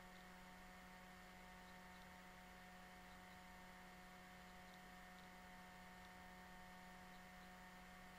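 Near silence: a faint, steady electrical hum with a little hiss.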